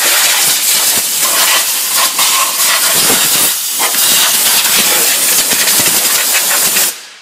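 Compressed-air blow gun blasting dust off an engine bay: a loud, continuous hiss with small wavers and dips, cutting off near the end.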